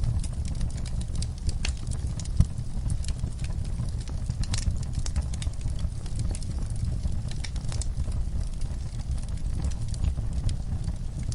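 Wood fire burning in a fireplace: a steady low rumble of the flames with irregular crackles and pops from the burning logs, one sharper pop about two and a half seconds in.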